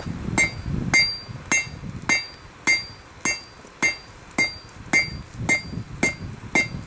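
Blacksmith's hand hammer striking a hot steel railroad spike on an anvil in a steady rhythm of nearly two blows a second, about a dozen in all. Each blow is followed by a short metallic ring from the anvil as the hot end of the spike is forged round.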